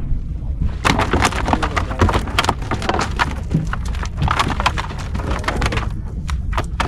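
A freshly caught fish thrashing and slapping on a boat's wooden deck: a rapid, irregular run of knocks from about a second in until near the end, over a steady low rumble of wind and boat.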